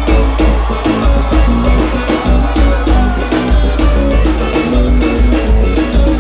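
Live band playing a loud, upbeat forró eletrônico instrumental passage, with a steady drum-kit beat over bass and held keyboard notes.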